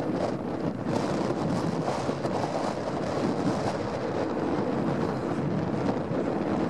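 New Holland TS115 tractor's diesel engine running steadily under load as it pulls a plough through the field, with wind noise on the microphone.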